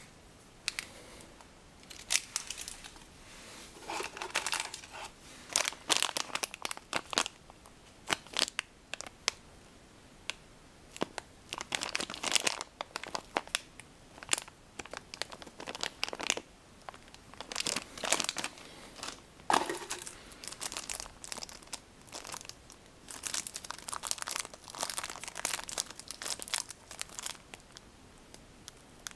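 Thin clear LDPE plastic bags crinkling as they are handled and squeezed between the fingers, in irregular bursts of crackles with short pauses between.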